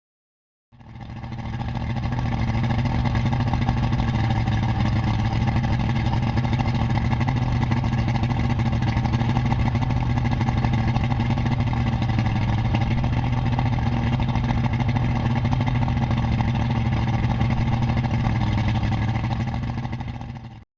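An engine running at a steady speed, fading in about a second in and fading out near the end.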